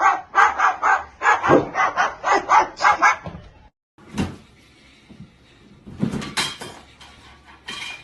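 A dog barking rapidly over and over, about four barks a second, for about three seconds. After a brief gap come a few scattered knocks and clatters.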